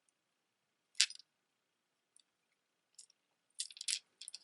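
Beads of a long necklace clicking against each other as it is handled: one sharp click about a second in, a couple of faint ticks, then a quick run of rattling clicks near the end.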